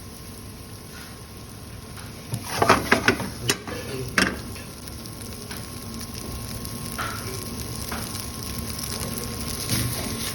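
Steady sizzling from a cooking pot, with a quick run of metal clanks and scrapes from the pot and a utensil about two and a half to four seconds in.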